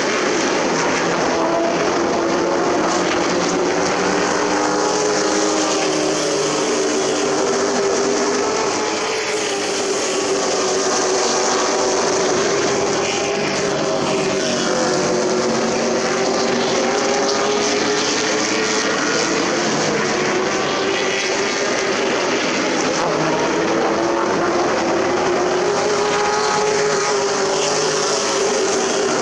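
Several race trucks' engines running at speed around an oval short track: a loud, unbroken drone whose pitch wavers up and down as the trucks accelerate, lift and pass.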